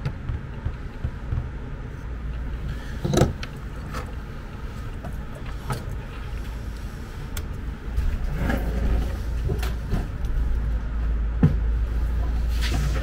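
Scattered knocks and clatters of tools and a chair being handled at a desk, over a low rumble that gets louder about eight seconds in.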